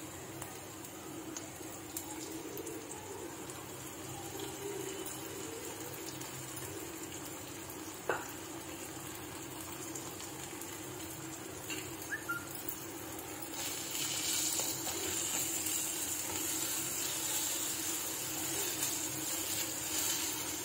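Chopped onions sizzling steadily in hot oil in a nonstick kadai. The sizzle grows louder and hissier about two-thirds of the way through, with a few light knocks along the way.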